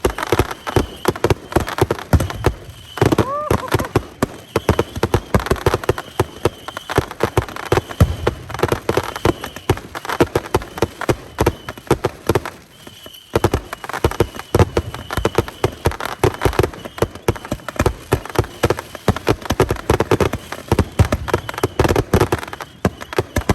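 Consumer fireworks firing in a rapid, unbroken string of sharp pops and bangs, several a second. A faint high whistle comes and goes through it, and a short rising whistle sounds about three seconds in.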